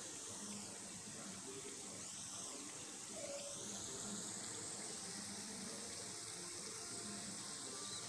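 Hot oil sizzling steadily around semolina pitha cakes frying in a pan.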